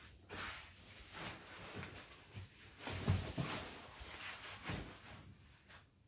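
Fgear Jargon 38L backpack being handled and shouldered: irregular rustling of the bag, its straps and clothing, with a dull thump about three seconds in.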